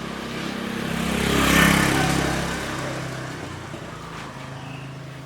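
A motor vehicle driving past, its engine and tyre noise growing louder to a peak about a second and a half in, then fading away.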